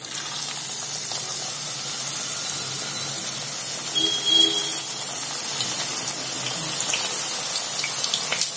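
Hot oil sizzling steadily as stuffed wheat-dough somas deep-fry in a pan, starting suddenly as the first pastry goes into the oil, with light crackling throughout.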